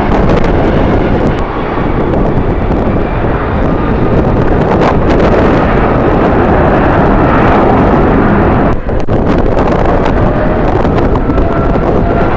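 Strong wind buffeting the microphone over the steady noise of a jet airliner's engines, with a faint engine whine showing near the end.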